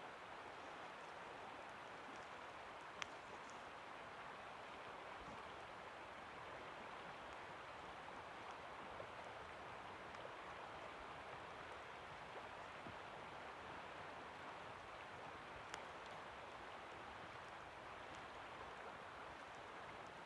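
The Coeur d'Alene River's water running, a soft, steady rush. Two brief sharp clicks come through it, about three seconds in and again past the middle.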